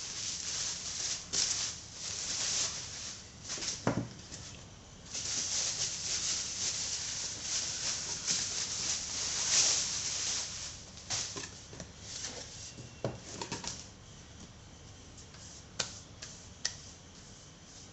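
Packaging being handled: uneven rustling and crinkling, heaviest through the middle and fading near the end, with a few sharp knocks as items are set down.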